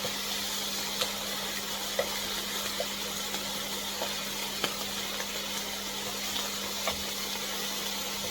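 Chicken wing pieces sizzling steadily as they fry in oil in a pan, with a few sharp clicks or pops spread through it.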